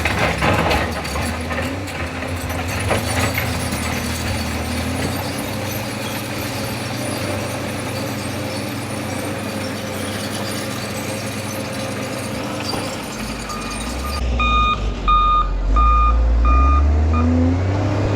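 Diesel engine of a heavy earthmoving machine running steadily. About two-thirds of the way through, a backup alarm beeps about five times, half a second apart, and the engine note rises near the end.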